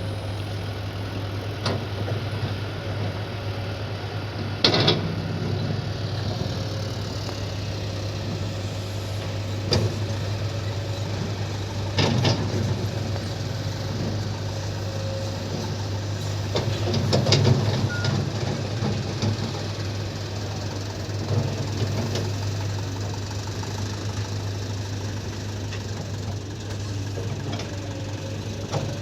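Kobelco hydraulic excavator's diesel engine running steadily at a low drone, with a few sharp metallic knocks scattered through it, the loudest about a third of the way in and again past the middle.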